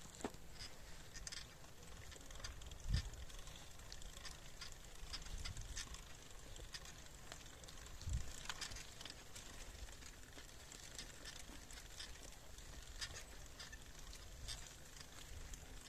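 Movement across a dry grass meadow: scattered light crackling over a low rumble, with a thump about three seconds in and another about eight seconds in.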